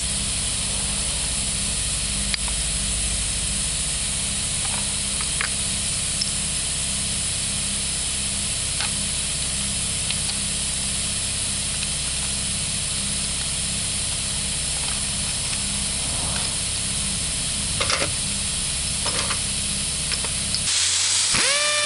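Steady hiss with an even low rumble under it, and a few faint metallic clicks as a spanner works inside the engine's crankcase. The hiss stops shortly before the end.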